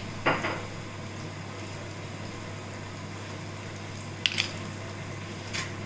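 Batter-coated green chillies (mirchi bajji) deep-frying in oil: a steady sizzle over a low hum. A sharp clink comes just after the start, and two more near the end.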